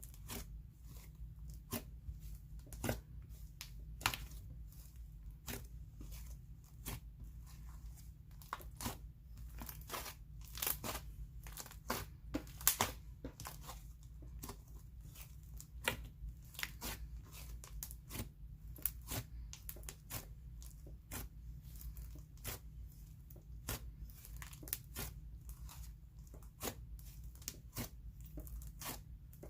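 Slime being handled by hand, giving off irregular sharp little clicks and pops, a few a second, as air pockets in it burst.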